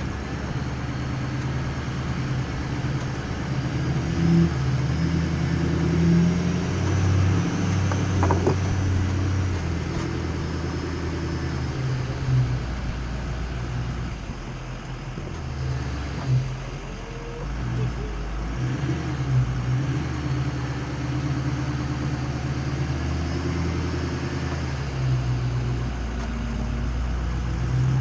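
Ford F-250's Power Stroke V8 diesel engine running as the truck drives a rough off-road trail, its pitch rising and falling with the throttle, with a few knocks from the truck.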